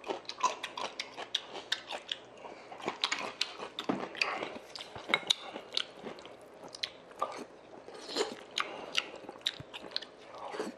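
Close-miked chewing and crunching of cubed radish kimchi (kkakdugi) and soup-soaked rice, with irregular sharp crunches and wet mouth sounds several times a second.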